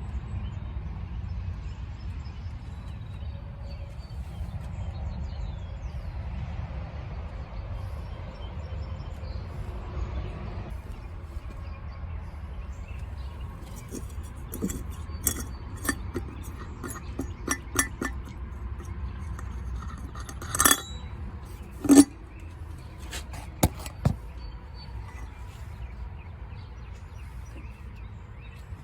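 Metal tools and engine parts clinking and clanking as an engine is torn down, with a scatter of light clinks from about halfway and two louder clanks, the second ringing briefly, over a steady low rumble.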